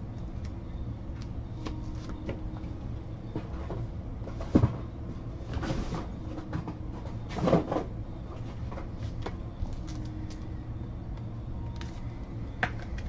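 A sharp knock about four and a half seconds in, then a few softer knocks and clatters, over a steady low hum.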